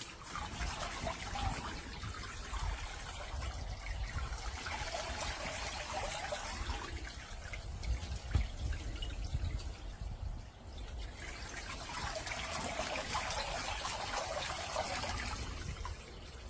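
Water trickling and splashing, swelling twice, over a low rumble.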